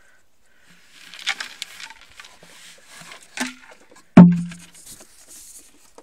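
Hay rustling and scuffling as goats jostle and nose around close to the camera, with a few small clicks. About four seconds in comes a single loud, sharp knock that rings briefly.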